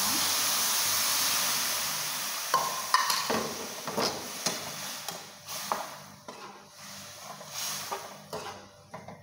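Liquid poured into a hot frying pan of fried jackfruit seeds bursts into a loud sizzle that slowly dies down. A metal spoon stirring the pan clinks and scrapes against it several times.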